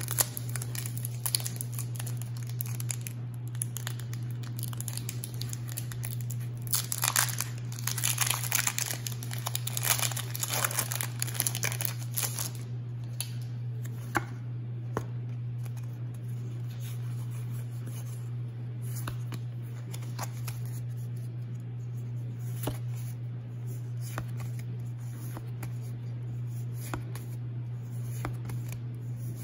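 Foil booster-pack wrapper crinkling and tearing open, loudest in the middle, then trading cards being slid and flipped through by hand with scattered soft clicks. A steady low hum runs underneath.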